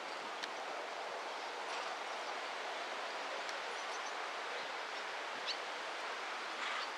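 Steady rushing wind noise, with a few faint, short high chirps, one about five and a half seconds in.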